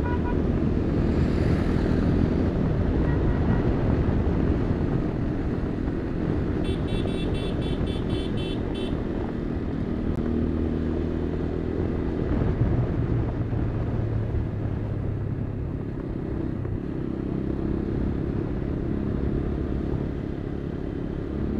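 A motorcycle engine running steadily while riding along a road, its pitch stepping up and down a few times as the speed changes. About a third of the way in, a rapid high-pitched pulsing is heard for about two seconds.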